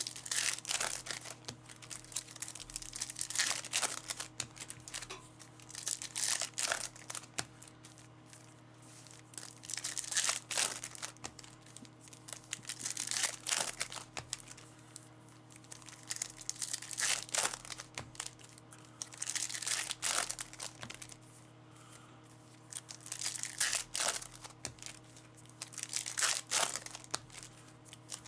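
Trading-card pack wrappers being torn open and crinkled, in crackly bursts every few seconds, over a steady low hum.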